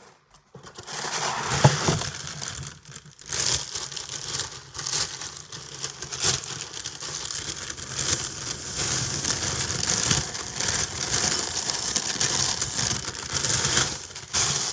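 Clear plastic cereal bag crinkling and rustling as it is handled right against the microphone, starting about a second in and going on almost without a break.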